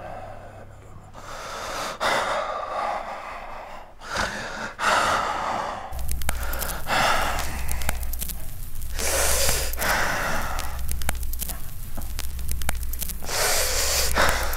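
A man's heavy, gasping breaths, several of them in turn. About six seconds in, a loud, rumbling noise with a deep hum and crackling cuts in suddenly and takes over.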